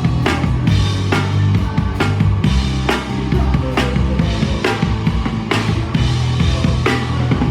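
Live rock band playing an instrumental passage: a drum kit hitting a steady beat of about two strokes a second over sustained bass notes.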